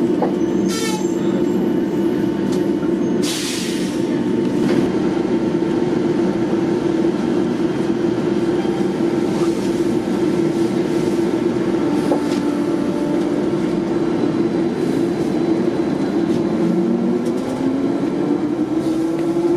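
Neoplan AN440LF-ETB electric trolley bus in motion, heard from inside the passenger cabin: a steady electric drive whine over road and body noise, with the whine rising in pitch near the end as the bus picks up speed. A short hiss about three seconds in.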